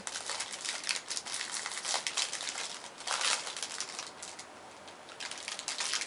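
Plastic wrapper of an individually wrapped snack bar crinkling as it is handled, in irregular crackly bursts. It is loudest about halfway through and again near the end.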